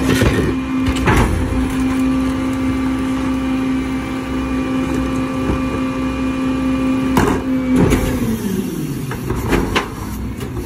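Mack LR garbage truck's diesel engine running with a steady tone that falls away in pitch about eight seconds in, with clanks and knocks from the Leach Alpha III rear loader and a plastic garbage cart being rolled up and hooked onto the cart tipper.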